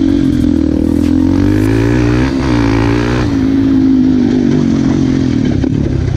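Yamaha Raptor quad's single-cylinder engine running through an FMF aftermarket exhaust, its pitch rising and wavering about two to three seconds in as the throttle is worked, then settling back to a steady run.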